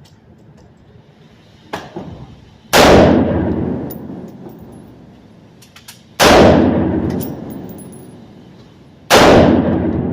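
AR-15 rifle in 5.56 mm fired three single shots, about three seconds apart, each followed by a long echoing decay. A lighter click comes shortly before the first shot.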